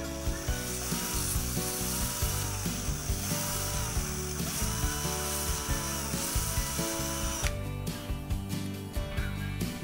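Cordless drill spinning an engine valve while sandpaper is held against it, a steady sanding hiss with the drill motor's whine, to strip carbon buildup off the valve; it stops about three-quarters of the way through. Background music with a steady beat plays under it.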